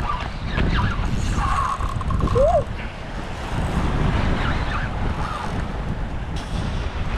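Wind buffeting the microphone in a steady low rumble, over the wash of waves against the jetty.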